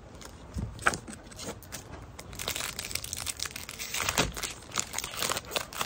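A 2022 Topps Opening Day baseball card pack's foil wrapper being handled and torn open. It gives off irregular crinkling and crackling, with a few sharp crackles about a second in and a denser, louder stretch of crinkling in the second half.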